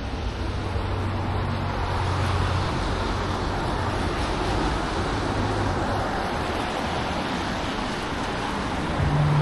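Street traffic: a steady wash of tyre and engine noise from passing cars, with a low engine hum in the first couple of seconds and another vehicle drawing close near the end.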